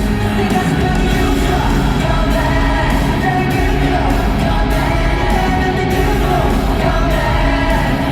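Loud pop music with singing.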